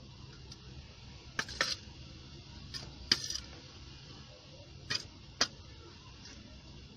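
Stainless-steel bowl clinking sharply about six times at irregular intervals as ragi flour, grated coconut and sugar are stirred in it, over a low steady hum.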